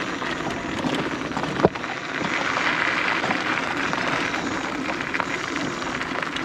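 Steady outdoor hiss with no clear source, a little stronger in the middle of the stretch, with a single sharp click about a second and a half in.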